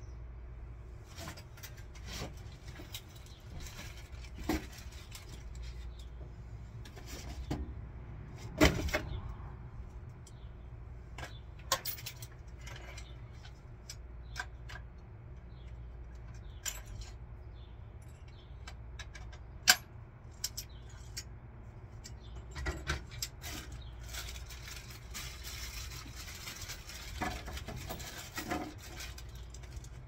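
Scattered clicks, taps and light clatter of small hand tools and parts being handled at a workbench, the sharpest about nine seconds in and again near twenty seconds, over a steady low hum.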